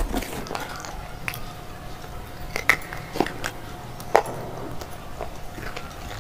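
Close-up crunching and chewing of a slate bar: irregular sharp, brittle crunches as the slate is bitten and ground between the teeth.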